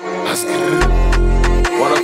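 Rap track's beat starting. About a second in, a long deep bass note comes in under a held tone and regular hi-hat ticks.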